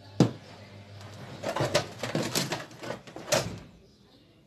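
Handling noise from electrical wires and a plastic washing-machine timer being picked up and sorted: a sharp click about a quarter second in, then a run of light knocks and rustles that stops about a second before the end.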